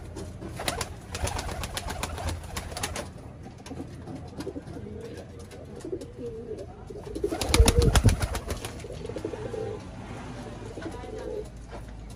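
Domestic pigeons cooing in wavering calls, with bursts of rapid wing flapping near the start and again, louder, about eight seconds in.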